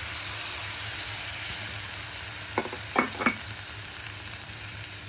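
Masala of browned onion, ginger, green chilli and spice powders sizzling in a hot pan as a little water is poured in, the sizzle loudest in the first second and easing off. About halfway through, a wooden spatula stirs and scrapes the pan three times in quick succession.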